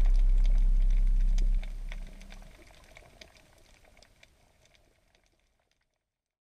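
Background music ending on a held low chord, with faint scattered clicks. The chord drops away about one and a half seconds in, and the sound fades to near silence.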